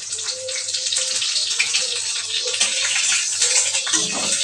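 Parboiled bitter gourds sizzling in hot oil in a kadhai: a steady, loud frying hiss with many small crackles.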